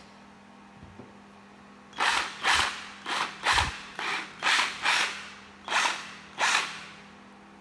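14.4 V cordless drill run in short trigger blips, about nine quick bursts of the motor in five seconds, starting about two seconds in.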